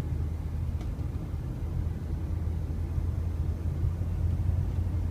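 A vehicle driving at steady speed: an even, low rumble of engine and road noise.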